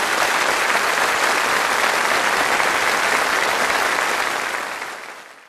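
Studio audience applauding at the end of a song, a steady dense clapping that fades out near the end.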